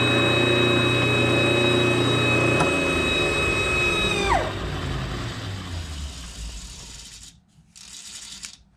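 Metal lathe running with a compressed-air pencil grinder whining in its tool post. A click a little over two seconds in stops the lathe motor, which coasts down. About a second and a half later the grinder is shut off and its high whine drops away quickly.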